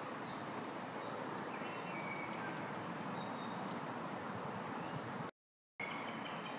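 Shallow stream running over stones, a steady rush, with faint bird chirps now and then. The sound cuts out completely for about half a second near the end.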